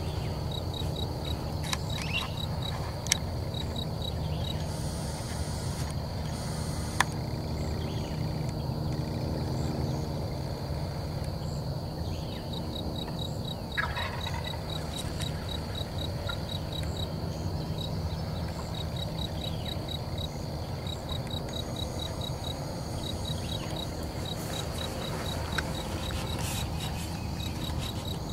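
Insects chirping steadily in a quick, even pulse over a low rumble of wind and movement on the microphone, with a wild turkey gobbling.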